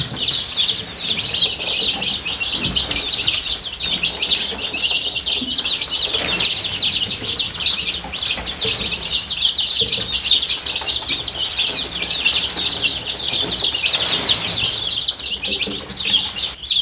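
A brood of day-old Black Australorp chicks peeping without pause: many rapid high chirps overlapping, each sliding down in pitch.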